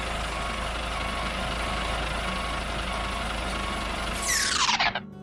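Truck engine running steadily while a reversing alarm beeps at an even pace. About four seconds in, a loud falling whoosh sweeps down, and the engine sound cuts off.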